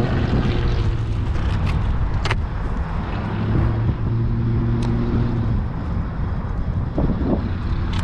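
A motor running steadily under a rumble of wind on the microphone, with a couple of sharp clicks.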